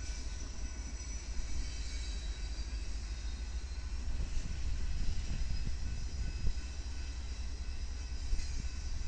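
Diesel freight locomotives, a Ferromex SD70ACe among BNSF units, rolling slowly past: a steady low rumble with a few knocks from the running gear partway through.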